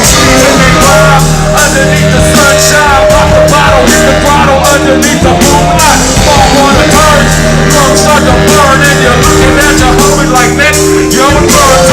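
Live band music played loud and steady: drums with busy cymbals, a held bass line, and a wavering melodic line above them.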